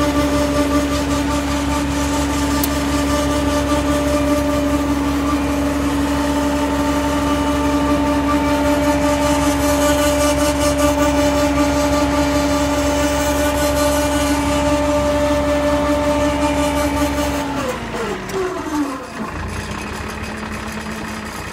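Winco 35,000-watt PTO-driven generator running steadily off a tractor's power take-off, a steady whine over engine noise. About 17 seconds in it slows down, its pitch falling over a couple of seconds, leaving a quieter, lower running sound.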